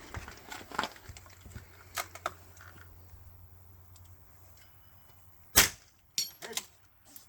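A single .22 LR rifle shot about five and a half seconds in, preceded and followed by a few sharp clicks and handling knocks, the bolt being worked between shots.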